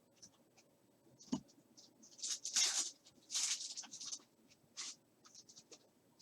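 Trading cards being handled during a pack opening: a soft knock, then several short papery swishes and small ticks as cards slide over one another.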